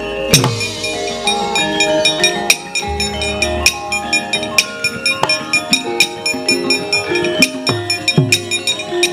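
Javanese gamelan playing: struck bronze metallophones ring out a melody in regular strokes, punctuated by hand-drum strokes that drop in pitch.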